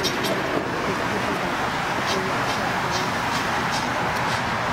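Ride-on miniature train rolling along its small-gauge track, heard from a riding car: a steady running noise with a scattering of short, sharp clicks.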